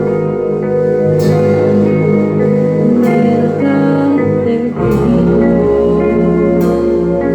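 Live rock band playing with guitars strumming held chords over bass and drums. A cymbal crash comes roughly every two seconds, and the bass moves to a new note about a second in and again near the five-second mark.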